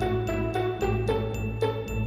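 Background music: a bright, bell-like tune over a steady beat of about four strokes a second.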